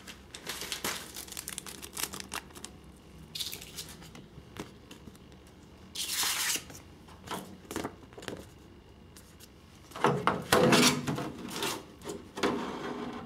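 Thin clear polycarbonate RC car body shell and its decal sheet being handled, crinkling and crackling in irregular bursts. The loudest bursts come about six seconds in and again around ten to eleven seconds.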